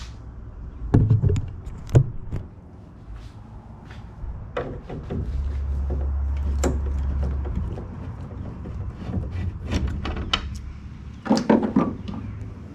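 Scattered clicks and light knocks of a 5/16 nut driver working the tail light's two retaining screws loose, with a steady low hum for a couple of seconds in the middle.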